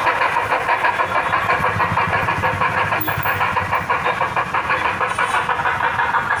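Steam locomotive sound: steady chuffing at a fast, even beat, with hissing steam.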